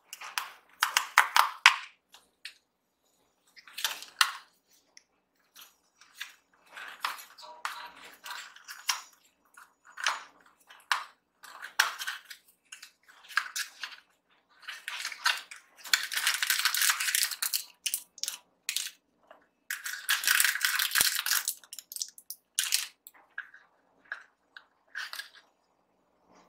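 Hands unboxing a small blind-box toy package: cardboard flaps being opened and handled, then a grey wrapper inside crinkled and pulled open, with the longest, densest crinkling about two thirds of the way in.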